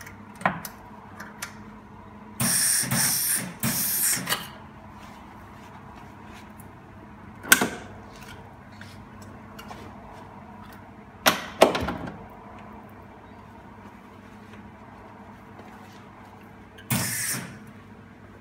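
Esab MIG welder laying short plug welds on a car's steel quarter panel: three bursts of about a second each, two close together early on and one near the end, with a few sharp knocks in between.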